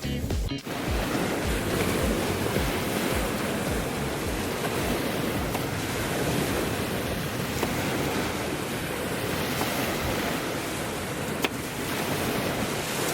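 Steady hissing and crackling from a wood campfire with meat cooking over it, with a single sharp click near the end.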